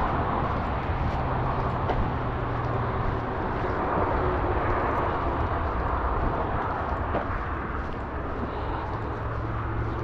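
Steady rumble of road traffic, with a low engine hum running underneath.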